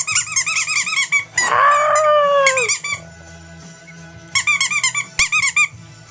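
A toy squeaking in quick repeated chirps, about seven or eight a second, in two bursts with a pause between them. A longer falling squeal comes in between, about a second and a half in.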